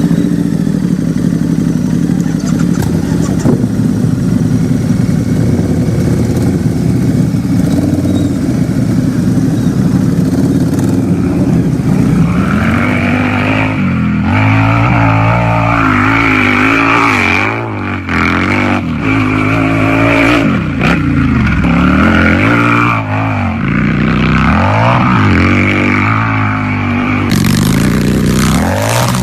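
Harley-Davidson V-twin motorcycle engine idling steadily, then revved up and down again and again from about twelve seconds in, settling back to a steady run near the end.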